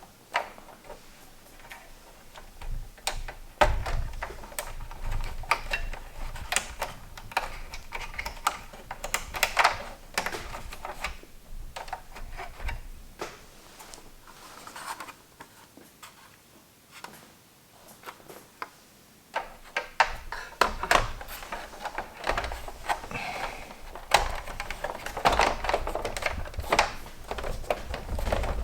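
Irregular clicks, taps and light knocks of hard plastic and metal parts being handled and fitted together while working on a PS3 Slim console.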